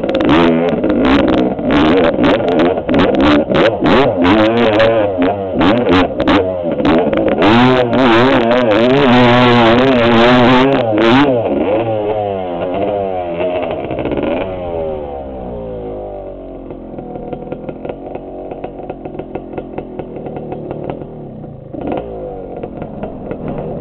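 Dirt bike engine revving hard in repeated surges under load on a steep hill climb, with sharp clatter from the bike. About eleven seconds in the revs fall away and the engine settles to a lower, quieter, uneven running.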